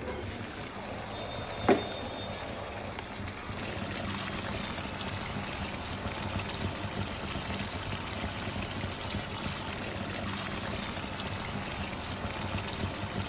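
Hilsa and water-lily-stem curry boiling in a wide pan, a steady watery bubbling. A single sharp knock about two seconds in.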